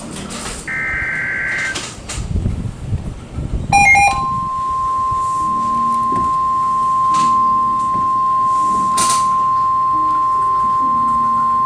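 NOAA Weather Radio alert signal: a burst of two-tone SAME digital header data, a click about four seconds in, then the steady single-pitch 1050 Hz warning alarm tone that opens a tornado warning broadcast.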